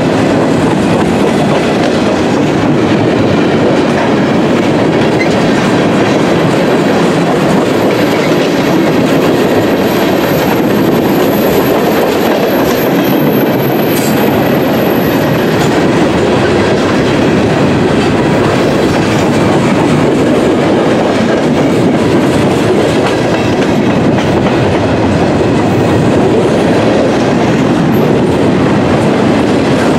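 Freight cars (tank cars, covered hoppers and autoracks) rolling past close by: a steady rumble of steel wheels on rail. A faint high whine runs for several seconds around the middle.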